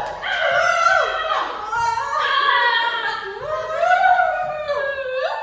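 A person's drawn-out, exaggerated villain laugh, high-pitched and sing-song, in long sliding 'ha' notes that cut off right at the end.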